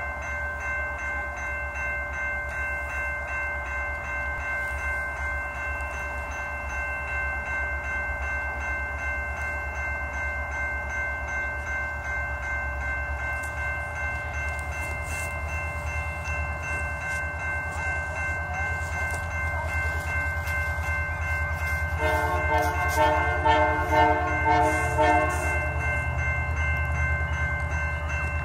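Level-crossing warning bell sounding steadily as a train approaches, over a low rumble from the locomotive. About 22 seconds in, a rapid pulsing tone joins for a few seconds, the loudest part.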